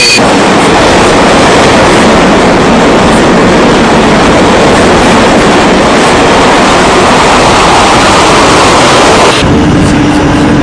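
Loud, steady rushing roar with no clear pitch. About nine seconds in it cuts off abruptly, giving way to a quieter sound with a low steady hum.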